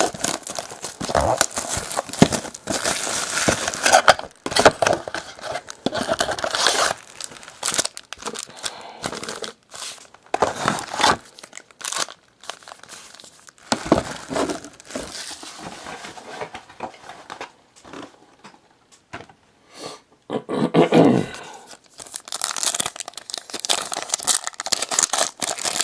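Foil trading-card pack wrappers crinkling and tearing as packs are opened and handled, in irregular bursts with a quieter stretch about two-thirds of the way through.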